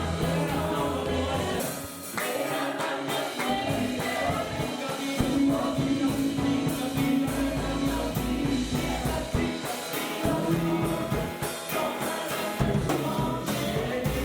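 Gospel music: a group of voices singing together over bass and percussion.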